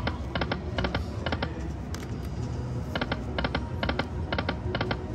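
Lightning Link High Stakes video slot machine spinning twice: the five reels stop one after another with a click each, about two a second, then after a short pause a second spin brings another run of five reel-stop clicks near the end. Casino slot music plays underneath.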